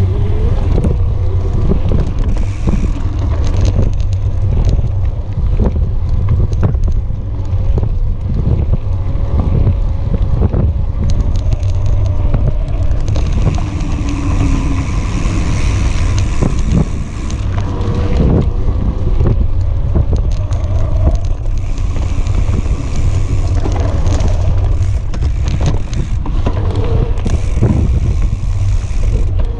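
Riding noise of an electric mountain bike on a dirt trail: wind buffeting the action camera's microphone, a low rumble from the knobby rear tyre on the dirt, and many short knocks and rattles as the bike goes over bumps.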